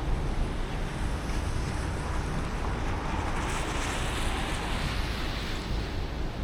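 Car driving on a rain-wet road: a steady hiss of tyres on wet pavement over a low road rumble, with the hiss swelling for a couple of seconds around the middle.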